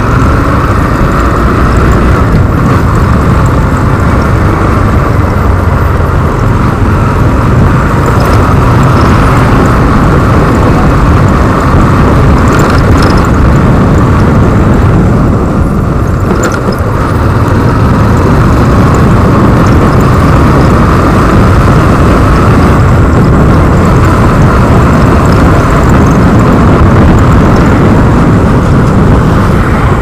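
Motorcycle ride at speed heard through a helmet-mounted action camera: a loud, steady rush of wind and road noise with a heavy low rumble, which eases briefly about halfway through.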